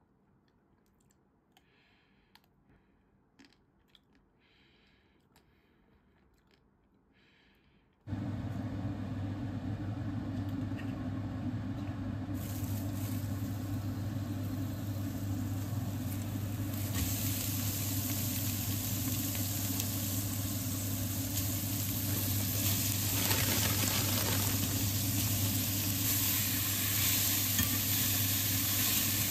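After about eight seconds of near silence with a few faint clicks, oil suddenly starts sizzling in a stainless steel pot with spring onion pieces. The hiss grows brighter as bean sprouts and shredded carrot go in and are stir-fried with a metal ladle, over a steady low hum.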